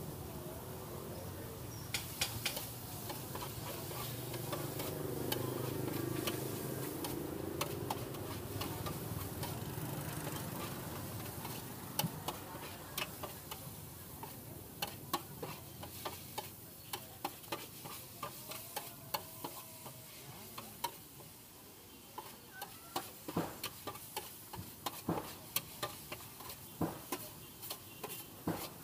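Metal spatula scraping and clinking against a steel wok while noodles are stir-fried, over a low sizzle. The clinks come in quick, irregular strokes, sparse at first and frequent through the second half.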